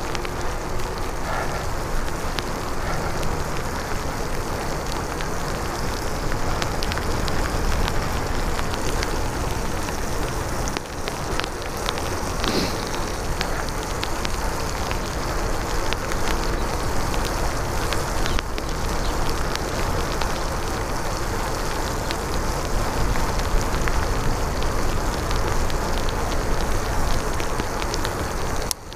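Bicycle tyres hissing steadily as they roll through standing water on a rain-soaked street, with the noise of rain mixed in and scattered faint ticks.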